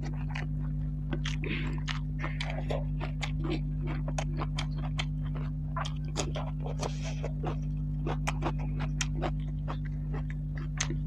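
Close-miked eating sounds: wet chewing and lip smacks, many quick sharp clicks from a mouthful of curry and rice, over a steady low hum.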